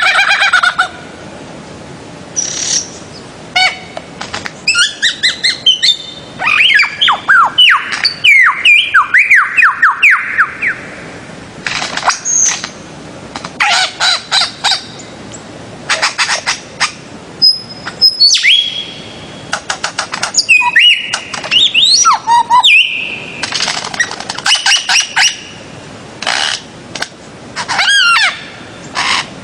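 Birds-of-paradise (Paradisaea) calling: repeated bursts of loud, sharp calls and quick sliding whistles, with short pauses between the bursts.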